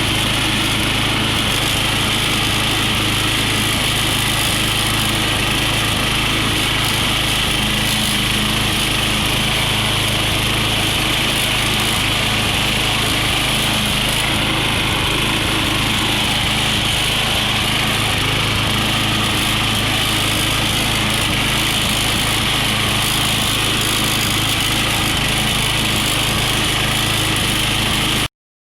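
Push lawn mower's small engine running steadily, with a sound the owner takes for a little rod knock; it cuts off abruptly near the end.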